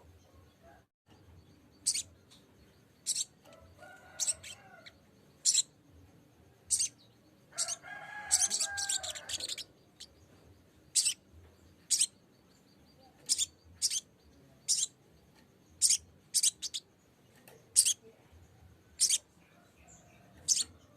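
Sogok ontong (spiderhunter) giving sharp, high-pitched chip calls about once a second, with a quick run of notes partway through. This is the lure call used to challenge a rival bird. A lower, wavering bird sound comes in briefly twice underneath.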